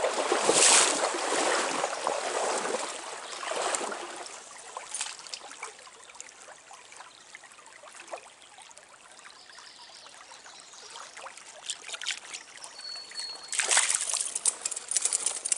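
Shallow stream water trickling and splashing, loud for the first few seconds and then faint with scattered small ticks. Near the end a louder rustling, clicking noise starts abruptly.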